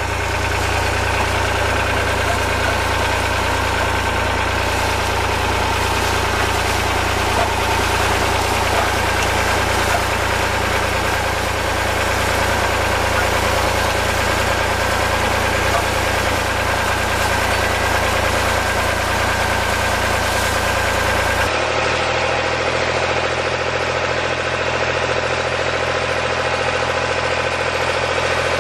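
An engine running steadily with a low hum. About three-quarters of the way through, the sound changes abruptly and the low hum drops away.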